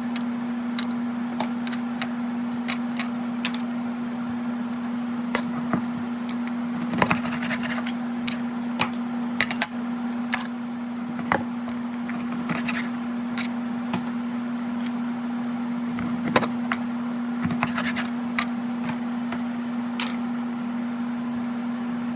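Steady one-pitch electrical hum of a running kitchen appliance, with scattered clicks and knocks of kitchen handling over it, a few of them louder.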